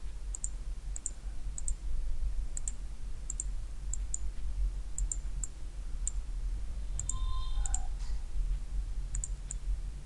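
Computer mouse clicking: a dozen or so quick clicks at irregular intervals, each a sharp double tick of press and release, over a steady low hum. A brief faint tone sounds about seven seconds in.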